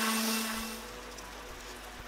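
Electric random orbital sander running on an end-grain hardwood board, a steady hum with a high hiss, which stops about half a second in; after that only a quieter steady background remains.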